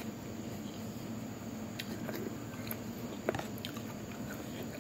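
Someone eating noodle soup: quiet chewing and mouth sounds with a few light clicks, one sharper click a little past the middle.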